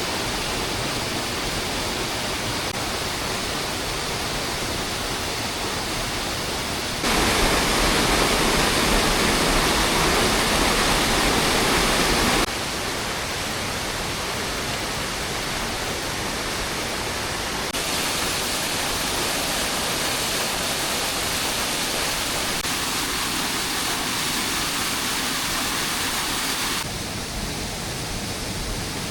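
Steady hiss of heavy rain, with sudden jumps in level where clips are cut together; the loudest, brightest stretch lasts about five seconds, a quarter of the way in.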